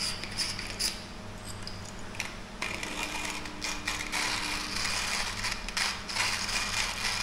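Timemore hand coffee grinder being cranked, its burrs crushing coffee beans with a dense crackling and clicking that gets busier a few seconds in.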